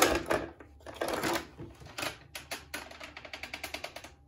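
Hard plastic clicks and knocks from handling a Nerf Stampede ECS blaster, turning into a quick run of light ticks about two-thirds of the way in.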